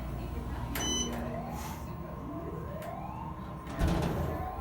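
Building fire alarm sounding a repeated rising whoop, each sweep climbing in pitch over about a second. There is a short high ding about a second in and a louder thump near the end.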